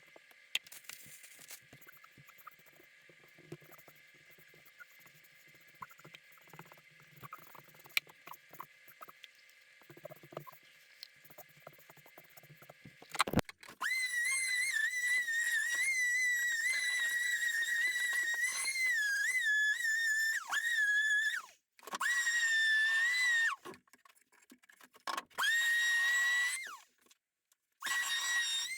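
Power tool motor running in spurts with a high, steady whine, its pitch dipping briefly as it takes load; first a long run of several seconds, then three short runs, the last rising in pitch as the motor spins up. Before it, faint clicks and handling noises.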